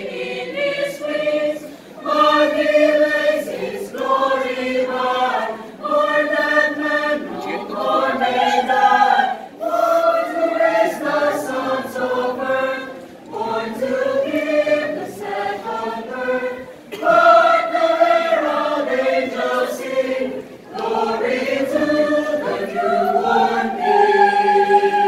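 Mixed choir of women's and men's voices singing a cappella in harmony, in short phrases with brief breaths between them, ending on a long held chord.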